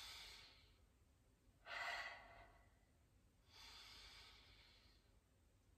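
A woman taking deep breaths through her nose as a breathing exercise. One breath fades out at the start, another comes about two seconds in, and a longer, softer one starts about three and a half seconds in.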